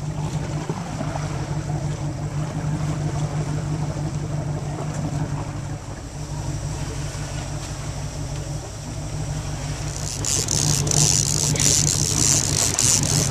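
A fishing boat's engine running steadily with a low, even hum. About ten seconds in a loud hissing noise joins it.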